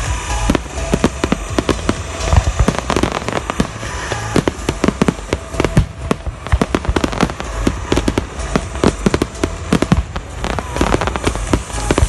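Fireworks display: a dense, irregular barrage of bangs and crackling bursts, several a second without a break.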